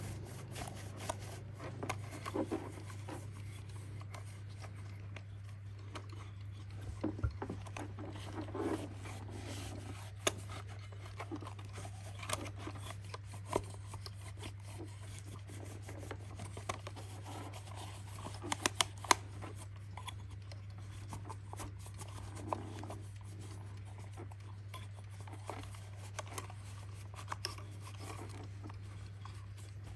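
Irregular rubbing and scraping with light clicks, as of hands working on a small alarm clock, over a steady low hum.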